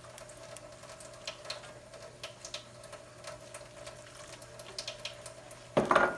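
Silicone whisk stirring milk gravy in a skillet, giving light, irregular ticks and scrapes over a steady low hum, with a short louder burst near the end.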